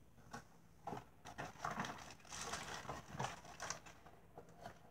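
Faint, irregular rustling and small knocks of craft-kit packaging being handled on a tabletop.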